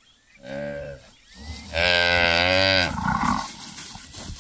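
Cattle mooing: a short moo about half a second in, then a long, louder moo about two seconds in.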